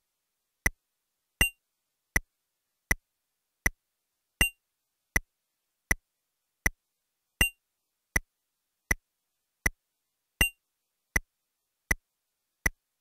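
Electronic metronome click counting a steady beat, about 80 beats a minute, with every fourth click accented by a higher tone marking the start of each bar of 4/4. The count-in or rest bars of a drum practice drill, with the drums silent.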